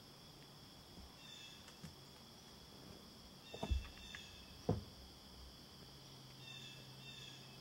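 Two short, loud sounds about a second apart from black bear cubs working at a bait barrel, over a steady insect buzz and a bird repeating a short call every few seconds.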